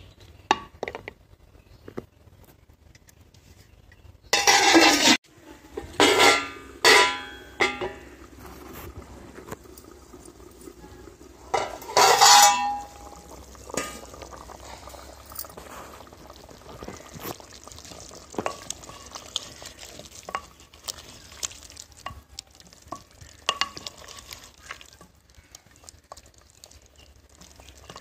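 A ladle stirs and scrapes chana dal and bottle gourd in a clay pot, with small clicks and knocks against the pot. Loud splashing bursts come a few seconds in and again around twelve seconds in as water goes into the pot.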